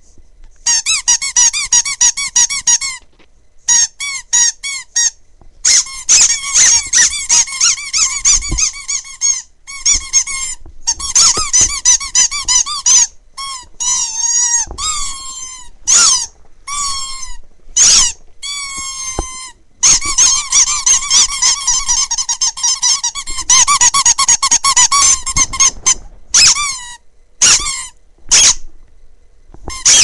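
Rubber squeaky toy squeaked over and over, with its pitch wobbling up and down. Long runs of rapid squeaks alternate with short single squeaks, most of them spaced a second or two apart in the second half.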